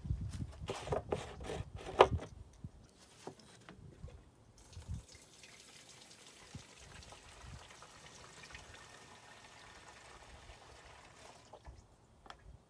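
A few knocks and clunks of handling a fuel can, then gasoline pouring in a steady stream into the ATV's fuel tank for several seconds before stopping.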